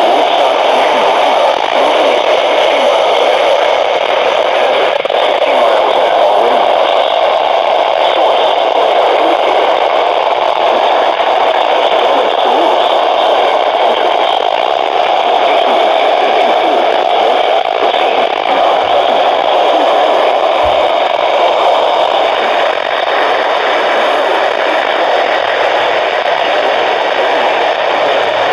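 Steady static hiss from a weather radio receiver, with nothing coming through clearly.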